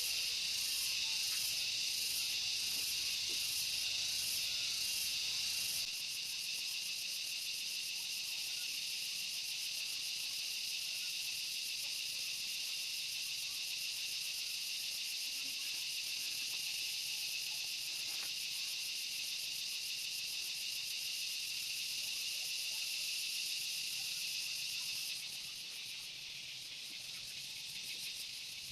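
Steady, high-pitched chorus of forest insects, a continuous shrill trill with a fast fine pulse in it. It steps a little quieter about six seconds in and again near the end.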